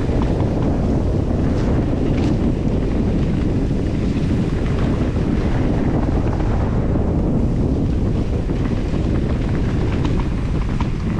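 Steady wind rumbling over a camera microphone while riding a mountain bike, with a couple of faint clicks about two seconds in.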